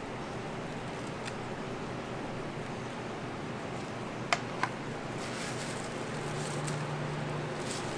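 Steady background hum, broken a little past the middle by two sharp, ringing metallic clinks about a third of a second apart: a steel spatula knocked against the edge of a stainless cream tray. Faint light crackles follow.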